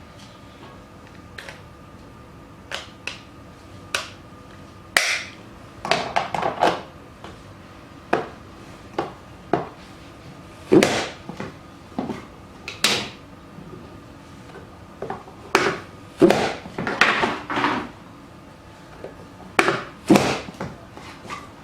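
A hand-operated vegetable chopper working: sharp plastic clacks and knocks in irregular bursts. They are sparse at first and come in quick clusters from about five seconds in.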